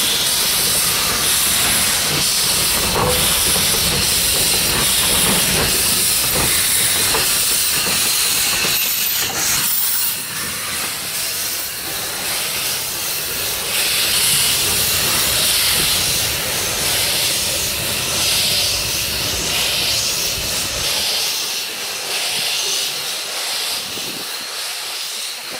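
Steam locomotive NM25 hissing loudly as steam vents from around its cylinders during slow shunting, over a low rumble of the engine moving on the rails. The rumble fades out near the end, leaving the hiss.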